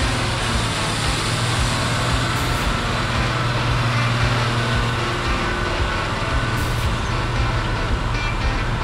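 A County four-wheel-drive tractor's diesel engine running flat out under heavy load as it drags a tractor-pulling sledge past, a steady deep engine note.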